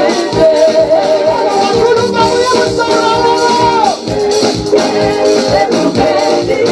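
Live African praise music: a congregation or worship team singing over drums and shaker percussion, with one long held note near the middle.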